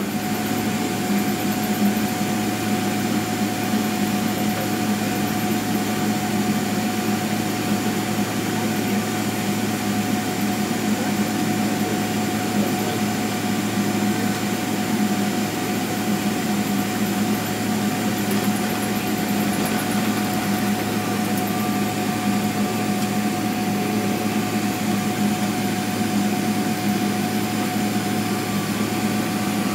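Steady cabin noise inside a Boeing 777-300ER taxiing after landing: its GE90 engines at idle thrust and the air-conditioning system, heard as an even hum with a constant mid-pitched tone.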